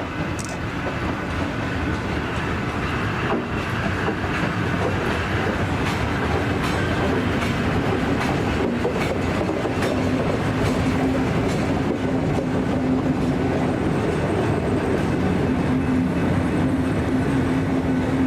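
Vintage Tait electric suburban train running on the rails, getting gradually louder. A steady hum comes in about a third of the way through.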